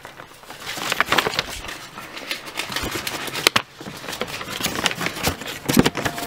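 Paper rustling and crinkling as an old folded handwritten note is opened, with irregular clicks and light knocks of handling.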